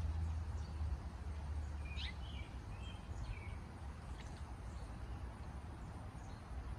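Outdoor garden ambience with a small bird chirping a few short notes between about two and three and a half seconds in, over a low steady hum that drops off about a second in.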